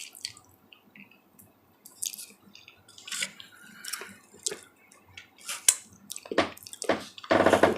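Close-miked chewing and lip smacking: many small wet mouth clicks and squishes from a person eating chicken, with a few louder smacks near the end.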